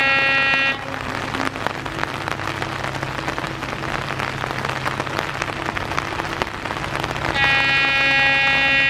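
Air horn of an EMD WDP4D diesel locomotive, a loud chord-like blast that stops about a second in and sounds again for a long blast near the end. Between the blasts, heavy rain hisses over the steady low hum of the locomotive's diesel engine.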